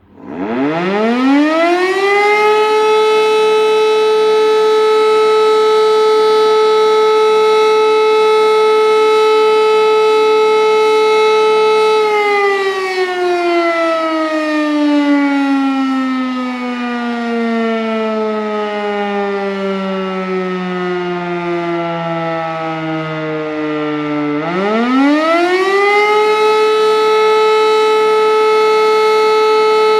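Rooftop electromechanical siren during a siren test. It winds up within about two seconds to a steady wail and holds it for about 12 seconds, then slowly winds down in pitch for about 12 seconds before winding up again to the same steady tone. This is the pattern of the German fire-brigade alarm signal: 12-second tones separated by 12-second pauses.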